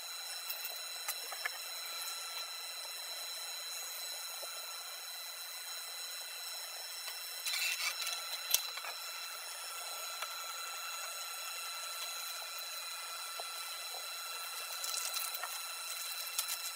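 A steady high-pitched electrical whine over a hiss, with short bursts of paper rustling and a sharp tap about halfway through, and more rustling near the end.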